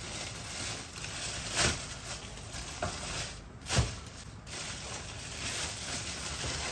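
A hand working in a plastic kitchen container: light rustling and scraping, with three soft knocks, the loudest a little under four seconds in, over a steady hiss.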